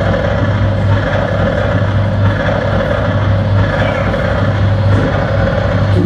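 Amplified noise music played live: a loud, steady wall of noise with a strong low hum and a bright band in the middle.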